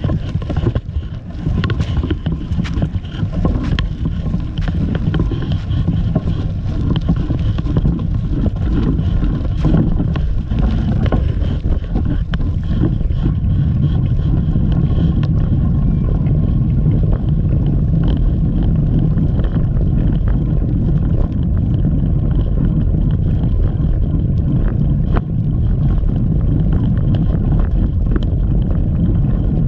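Wind buffeting the microphone of a bike-mounted camera while cycling: a loud, steady low rumble that grows louder and more even about halfway through, as the bike gets moving.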